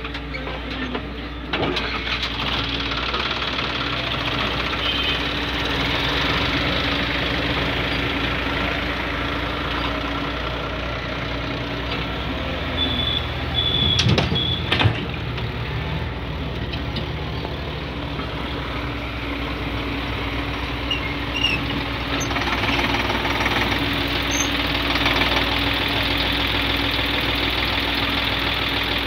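Diesel engine of a Hyundai crawler excavator running steadily as it loads a tipper trailer. About halfway through, a bucketful of wet mud is dumped and lands with a heavy thud in the steel trailer bed.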